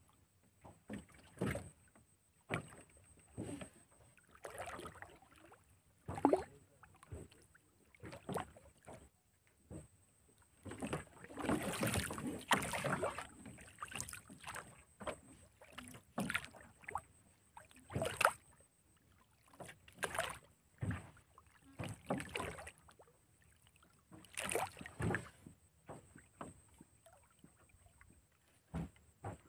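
Irregular knocks, splashes and scrapes around a small wooden boat as a hooked fish is hand-lined from the water and landed on the deck, with a longer stretch of splashing and thrashing about a third of the way in.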